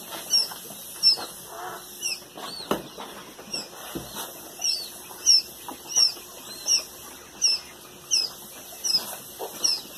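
Newly hatched quail chicks, Chinese painted and giant quail, peeping: short high chirps repeating about twice a second, often overlapping.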